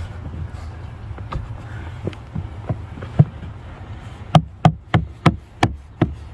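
Rubber door weather strip being pressed by hand back onto the door frame: a series of short sharp knocks, sparse at first, then coming about three a second in the second half.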